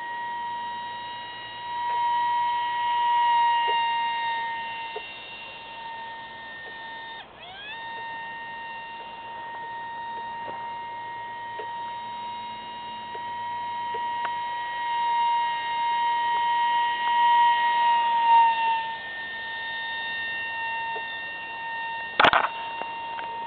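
A 30 mm electric ducted fan (GWS EDF30 on a high-rpm brushless inrunner) whining steadily as the small RC jet flies overhead, swelling and fading as it passes. About seven seconds in, the whine dips in pitch and climbs back. A sharp click comes near the end.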